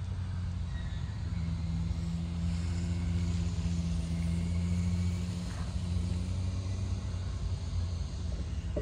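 Freight diesel locomotive power hauling an unpowered Amtrak Avelia train set, its engine giving a deep, steady drone. The drone swells about a second in and eases after about five seconds.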